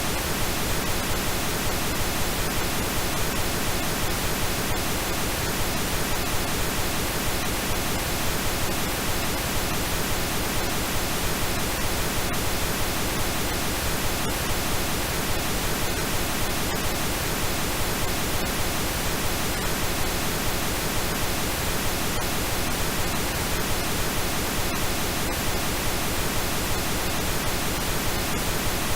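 Generated pink noise: a steady, even hiss spread across all pitches, with no change.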